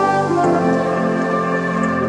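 Calm ambient background music of sustained, held chords, changing chord about half a second in.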